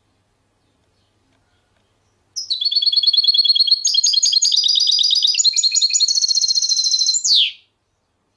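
A songbird, a finch of the kind kept for song, sings one rapid, high trilled phrase of about five seconds, starting about two seconds in and ending with a quick falling note.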